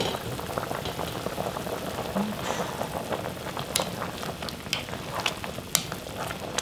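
Soy-sauce braising liquid for jjimdak boiling hard in a pot, a steady bubbling hiss with a few sharp pops and clicks, as a wooden spoon stirs through the chicken pieces.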